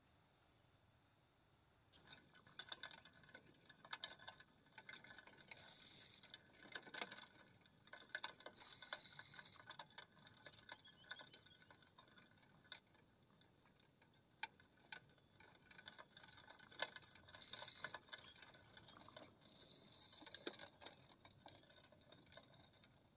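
Cricket calling: four loud trills of a pure high tone, each half a second to a second long, spaced a few seconds apart. Faint ticking and scratching between them.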